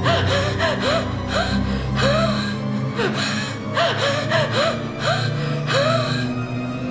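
A woman gasping over and over in short, strained breaths, over low, scary soundtrack music. The gasps stop shortly before the end.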